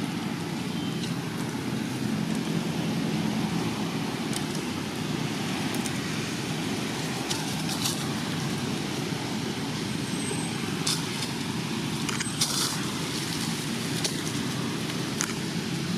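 Steady low rumble with a faint hum in it, of the kind road traffic or a running engine makes, with a few faint sharp clicks over it.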